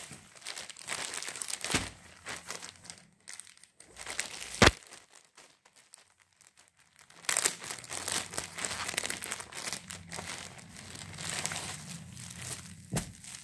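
Clear plastic shirt packaging bag crinkling as a folded checked shirt is handled and pulled out of it, in two stretches of rustling. A sharp snap about four and a half seconds in is the loudest sound, and another comes near the end.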